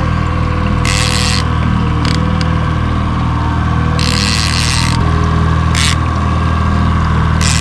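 A fishing boat's engine running steadily at trolling speed, its note shifting slightly about five seconds in. Several short bursts of hiss come and go over it.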